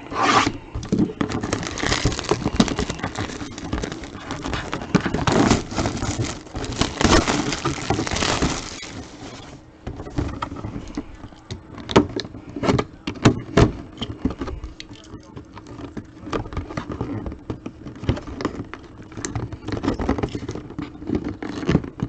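Packaging of a mini football helmet being opened by hand: a dense stretch of crinkling and tearing for the first nine seconds or so, then scattered clicks and knocks as it is handled.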